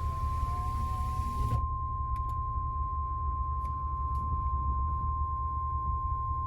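Steady single-pitch attention tone of an Emergency Alert System broadcast, the alert signal that comes before a National Weather Service warning. It sounds over a low hum, and a hiss behind it drops out about a second and a half in.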